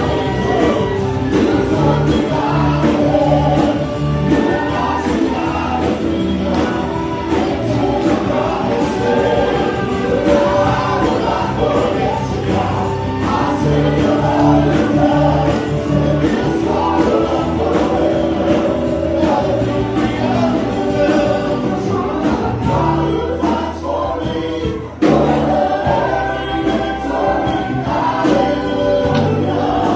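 Live church worship band playing a gospel song while the congregation sings along: a mass of voices over guitar, bass and drums.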